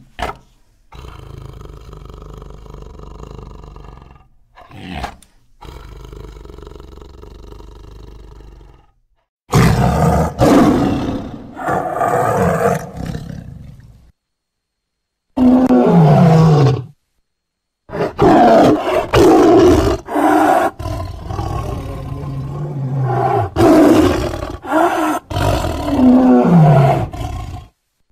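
Big-cat growls and roars used as saber-toothed tiger sound effects. A quieter, steady growl runs for the first several seconds, then comes a series of loud roars and snarls with brief silent gaps between them, a few of them sliding down in pitch.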